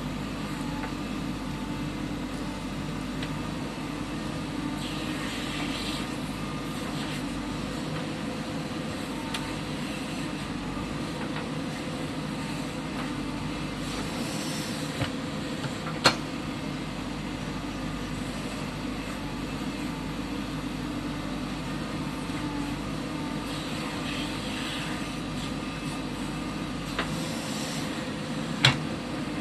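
JCB 3DX backhoe loader's diesel engine running steadily under work, with a few sharp knocks, the loudest about halfway through and near the end.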